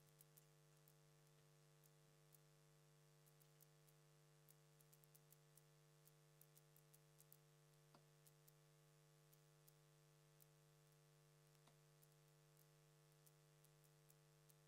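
Near silence: a faint steady electrical hum with scattered faint clicks.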